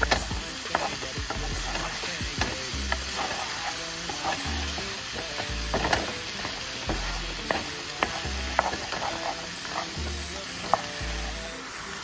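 Sliced mushrooms and chopped onions sizzling in butter in a frying pan while a wooden spoon stirs them. Irregular clicks and scrapes come from the spoon against the pan over the steady sizzle.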